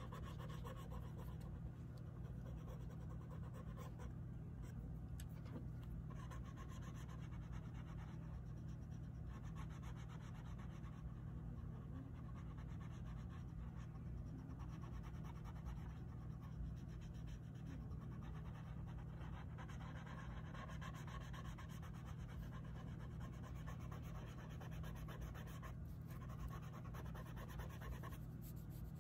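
Oil pastel being rubbed and blended on sketchbook paper, a soft, shifting scratching, over a steady low hum.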